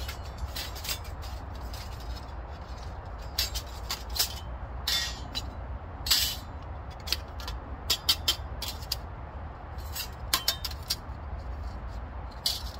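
Onetigris folding pocket stove being taken apart: its thin metal panels clink and clatter sharply and irregularly as they are unhooked and set down, over a steady low rumble.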